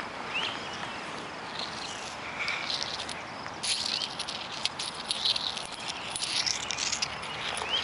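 Outdoor field ambience: a steady hiss with scattered light clicks and rattles, thickest in the second half, and a couple of short rising chirps.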